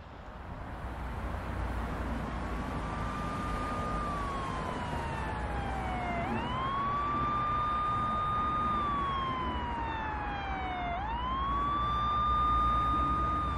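An emergency-vehicle siren wailing. Its pitch climbs quickly, holds high, then slides slowly down, repeating about every four to five seconds, over a steady low rumble.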